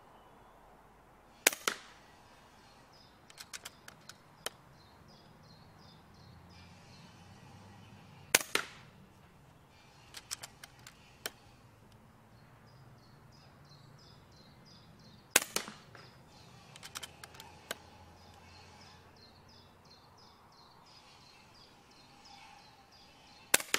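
An FX Indy .22 pre-charged air rifle firing four shots about seven seconds apart, each a sharp crack. A short run of quieter clicks follows a couple of seconds after each shot as the action is cycled for the next pellet.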